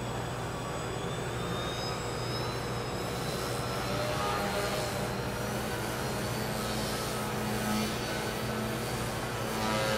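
Small RC model plane's motor and propeller whining as it flies aerobatics. The pitch climbs over the first few seconds, then rises and falls with the throttle.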